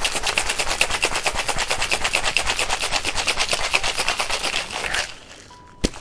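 Ice cubes rattling in a metal cocktail shaker shaken hard, a fast, even rattle that stops about five seconds in. A single sharp knock follows near the end.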